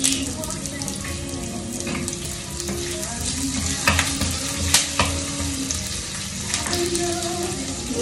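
Diced leftover pork sizzling steadily as it fries to a crisp in a nonstick pan, with a few sharp clicks and scrapes from a wooden spatula stirring it around the middle.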